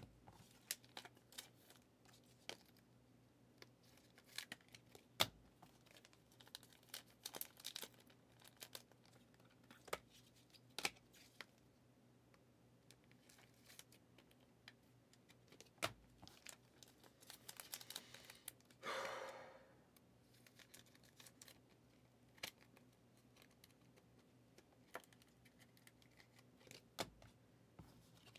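Quiet handling of trading cards and their pack wrappers: scattered light clicks and taps, the sharpest about five seconds in, with a short crinkling tear lasting about a second near nineteen seconds in.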